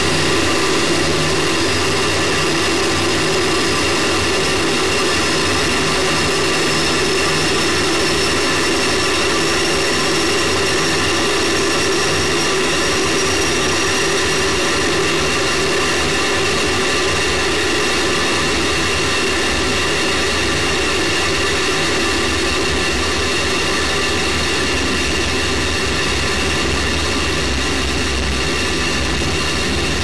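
Space Shuttle solid rocket booster firing during powered ascent, heard from a camera mounted on the booster itself: a loud, steady rushing noise with a few constant high tones, one of them rising slowly through the first half.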